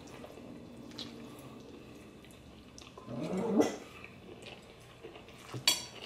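Quiet eating at a table: a few light clicks of a fork and chopsticks against bowls, with one short rising whine about three seconds in.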